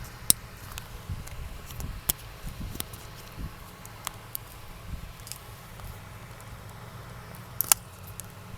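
Scattered light clicks and taps of hands working a plastic tube over a wiring harness at a steering column, over a low steady hum.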